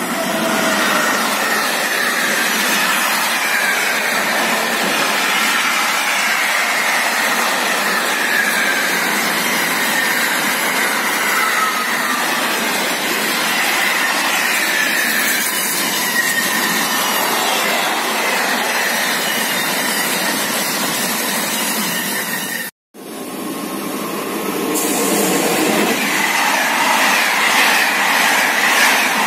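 BB 26000 electric locomotive hauling a long intermodal freight train of container and swap-body wagons past at speed: a steady rolling of wheels on rail, with a faint whine that slowly falls in pitch over the first dozen seconds. After a sudden cut about 23 seconds in, a locomotive-hauled passenger train passes close by.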